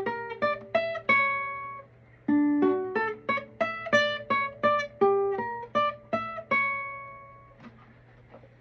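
Classical guitar played note by note: a quick single-note riff high up the neck on the G, B and high E strings (around the 9th to 12th frets), in two phrases with a brief pause between them. The last note rings out and fades about seven and a half seconds in.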